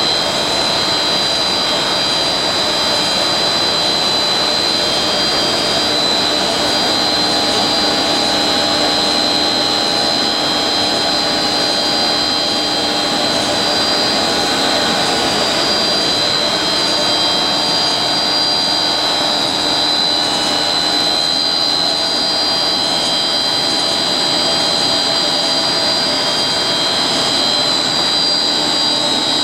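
HDPE blown film extrusion machine running steadily: a loud, even industrial noise with several high steady whines over it.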